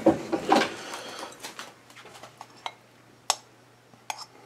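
Spoon scraping and knocking against a ceramic mixing bowl while garlic paste is spooned in, loudest in the first second, followed by a handful of light, separate clicks and taps.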